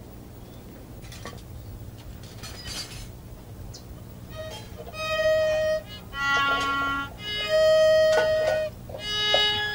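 Violin bowed in slow, separate long notes, each held about a second, beginning about halfway through; before that only a few faint scrapes.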